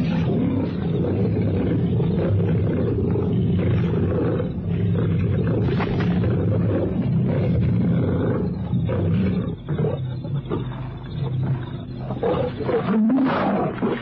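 Lions growling and snarling as they fight over a kill, a continuous deep growling that breaks up into separate snarls in the last few seconds. Old broadcast recording with the high end cut off.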